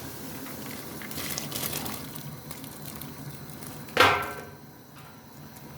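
Washed rice and water pouring into a pot of boiling water, a hiss that swells about a second in. Then one sharp, ringing clang of metal cookware just before the end, the loudest sound here.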